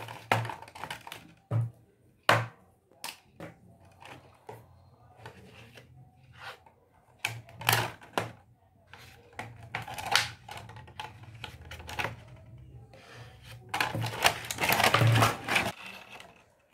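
Crinkling and clicking of a thin green plastic-bottle sheet being handled and pressed flat while a leaf shape is traced on it, then a denser run of scissors cutting through the plastic near the end.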